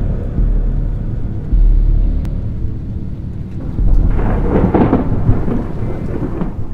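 Thunder sound effect: repeated deep rumbles, with a louder crackling, lightning-like burst about four to five seconds in.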